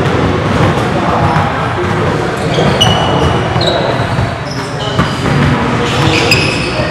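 Basketballs bouncing on a hardwood gym floor, with short high sneaker squeaks on the court, all echoing around the hall.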